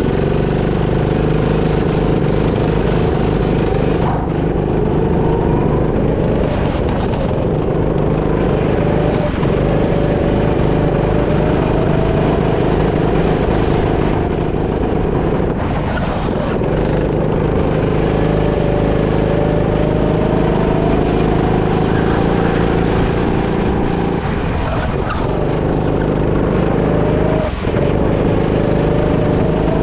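Rental go-kart engine heard close up from the kart itself, running hard through the laps. Its pitch climbs steadily for several seconds at a time and drops briefly about five times as the kart slows for corners.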